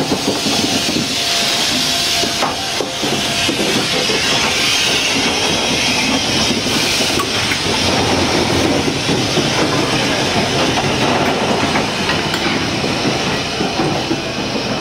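BR Standard Class 8 three-cylinder steam locomotive 71000 Duke of Gloucester moving slowly past, with steam hissing loudly from its open cylinder drain cocks over a low rumble of wheels on the rails. The hiss weakens over the second half as the engine draws away.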